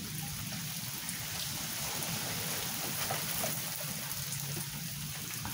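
Steady rain falling during a thunderstorm, with scattered drops ticking and a low steady rumble underneath.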